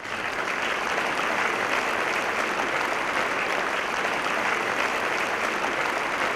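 An audience applauding: steady, continuous clapping from many hands.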